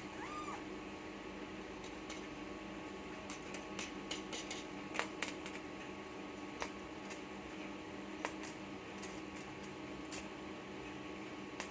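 Steady electrical hum with fan noise from a running 12 V power inverter setup, with scattered sharp metallic clicks and taps, the loudest about five seconds in.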